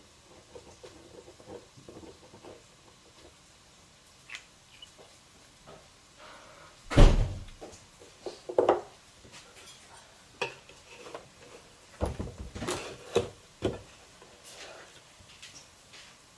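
Scattered knocks and clatter of objects being handled, with a heavy thump about seven seconds in and a run of sharper knocks between about twelve and fourteen seconds.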